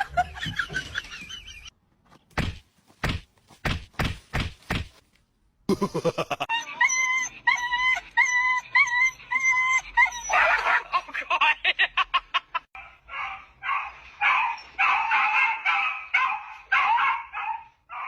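A dog yelping and barking in quick short bursts through the second half, after an evenly repeated whining call. Earlier there is a run of about seven sharp knocks.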